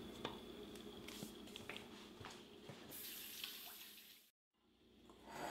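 Quiet kitchen room tone: a steady low hum with a faint hiss and a few light clicks, broken by a moment of dead silence about four seconds in.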